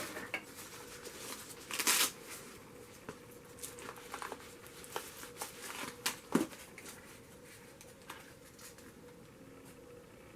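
Rustling, crinkling and small clicks of a new camcorder and its packaging being handled, with a louder crinkle about two seconds in. The handling thins to scattered clicks and dies away about two-thirds through.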